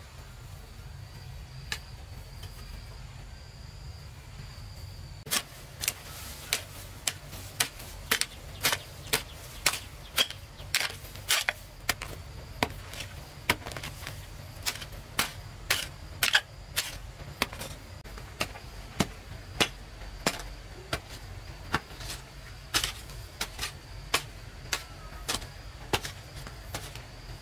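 Repeated sharp knocks of a tool striking wood, starting about five seconds in and going on at about two a second, unevenly spaced. Before they start, a faint steady insect buzz.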